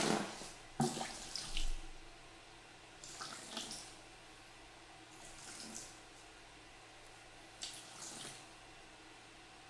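Water splashing into a shallow clear tray of water: a big splash dying away at the start, then several short trickles and splashes poured from a metal watering can, a second or two apart with quiet between.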